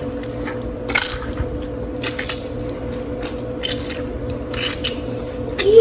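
Lemon squeezed by hand over raw chicken in its marinade: several short, irregularly spaced wet squishes and squirts of juice.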